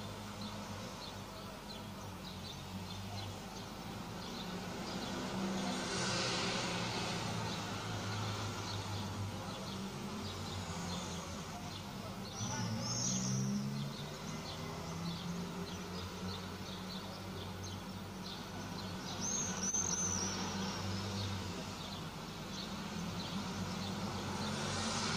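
Brass choir of trombones, horns and tuba playing a slow chorale from high on a church tower, heard from far off: low held notes that move to new pitches every few seconds. High bird chirps come through twice.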